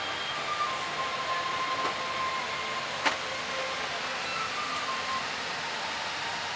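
Steady air-conditioning hiss in a Boeing 787-8 cabin, with a single sharp click about three seconds in.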